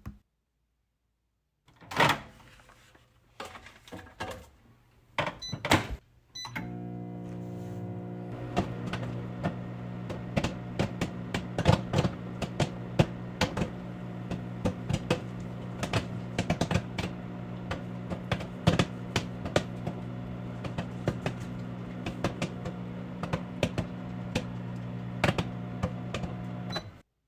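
Microwave oven: a thunk and a few short keypad beeps, then the oven running with a steady hum while popcorn pops inside in many sharp, irregular pops. The hum and popping cut off suddenly near the end, the popcorn stopped early so it would not burn.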